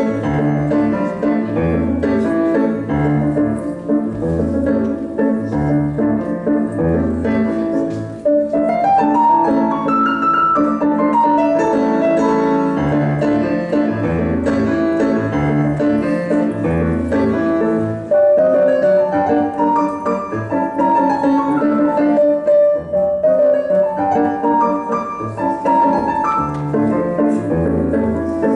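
Solo piano music played on a digital piano: a repeating bass line under a melody, with a quick rising run of notes about eight seconds in.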